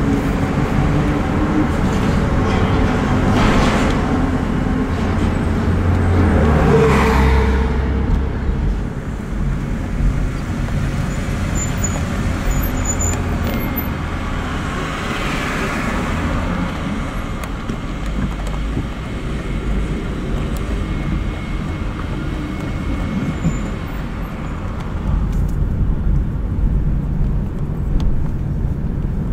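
Road traffic: a steady rumble of tyres and engines along a city street, with several vehicles swelling up and fading as they pass.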